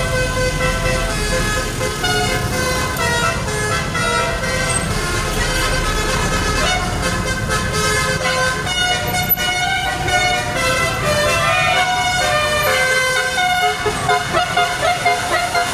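Bus telolet horn, a set of tuned air horns, playing a melody of tooting notes that change pitch in steps, over the low rumble of the bus's engine.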